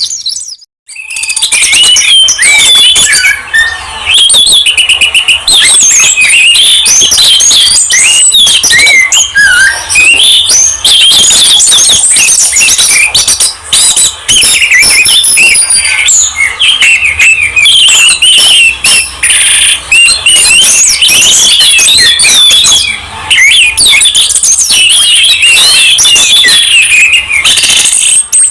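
Songbirds singing loudly and without pause: a dense stream of rapid chirps, trills and quick up-and-down whistled notes, starting after a brief silent gap near the start.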